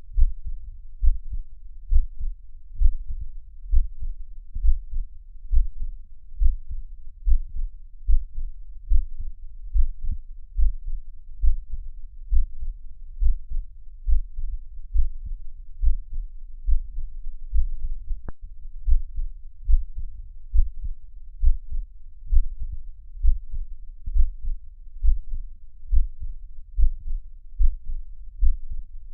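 Heartbeat: low, muffled thumps repeating at a steady even pace, with one brief faint click about two-thirds of the way through.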